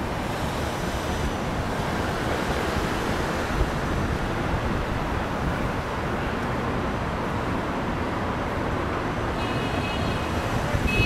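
Steady rushing road and wind noise of a moving vehicle, with a few high, steady tones near the end.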